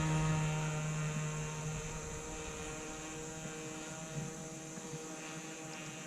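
Engine of a radio-controlled sport plane in flight, a steady drone that fades gradually as the plane moves away.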